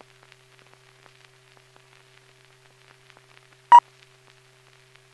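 Faint crackle and a low steady hum from an old film soundtrack over a blank screen. A little past the middle, a single short, clear beep cuts in once.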